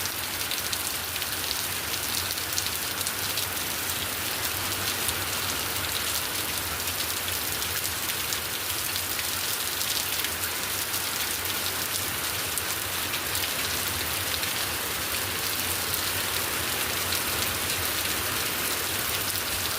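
Rain falling steadily: a dense, even hiss of drops with fine individual patters, over a low steady rumble.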